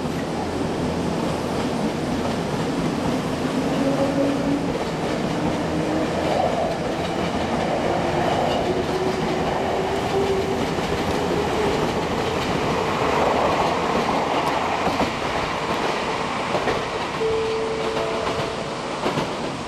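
Semboku 3000-series electric train pulling out of the station, its traction motor whine rising slowly in pitch as it gathers speed, over the steady rumble and clatter of wheels on the rails. Near the end a short, steady pitched tone sounds.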